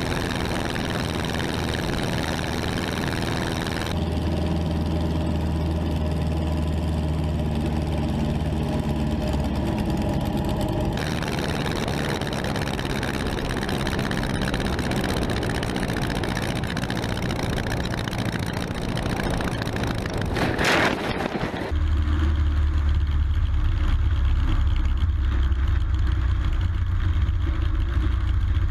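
Steady engine noise with a rushing hiss, changing abruptly several times: a low drone about 4 to 11 seconds in and again from about 22 seconds. There is a brief whoosh about 20 seconds in.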